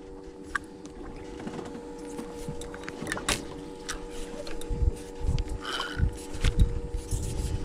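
Steady hum from the boat, with light clicks and knocks from a spinning rod and reel being handled, and a few dull thumps in the second half.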